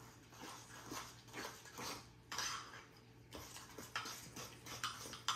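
Metal spoon stirring thick peanut sauce in a small ceramic bowl, scraping and clinking against the bowl's sides in a run of short, irregular strokes, with one longer scrape in the middle. The peanut butter sauce is being thinned with a little water as it is stirred.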